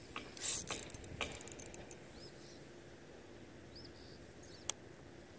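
Handling clicks and knocks from a spinning reel and fishing rod held close to the microphone, loudest about half a second in, with a sharp click near the end. A faint high pulsing, about four a second, runs underneath.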